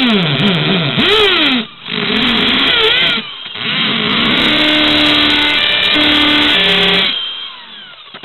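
Electric drill boring into an old mobile phone, its motor pitch rising and falling as the bit bites and binds, then holding steady. About seven seconds in the trigger is released and the motor winds down.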